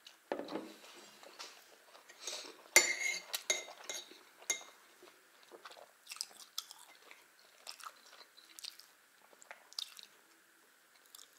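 Chewing pancakes, with a metal teaspoon clinking and scraping in a ceramic saucer of strawberry jam. The loudest is one sharp, ringing clink about three seconds in, followed by lighter scattered clicks.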